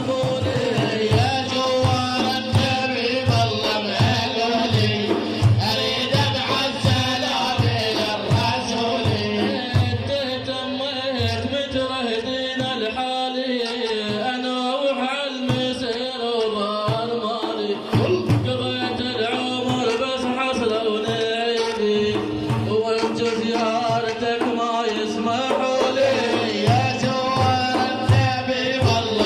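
Middle Eastern madih music: a steady drum beat under a wavering melodic line.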